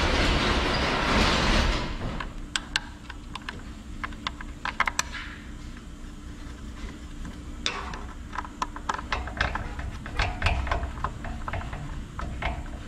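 Plastic air-cleaner back plate being fitted onto a generator carburetor and its screws started by hand: scattered light clicks and rattles of plastic and small metal parts. A loud rushing noise runs through the first two seconds, then stops.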